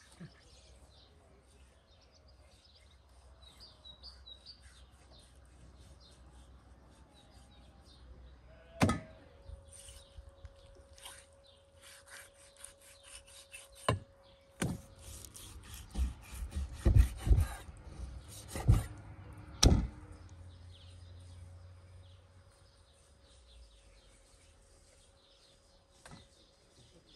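A knife cutting raw meat on a wooden chopping board: sharp knocks and scraping, most of them between about 9 and 20 seconds in, with birds chirping.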